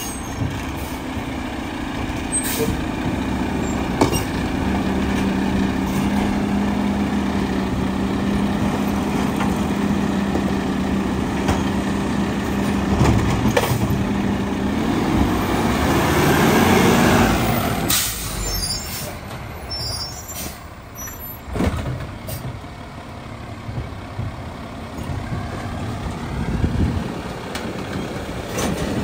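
Mack LR garbage truck's engine running as the truck pulls up to the curb, then a hiss of the air brakes a bit over halfway through as it stops, after which it idles more quietly with a few sharp clicks.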